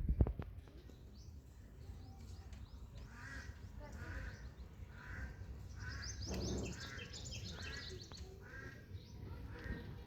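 Birds calling outdoors: a run of short, repeated calls, about two a second, starting around three seconds in, over a faint low rumble.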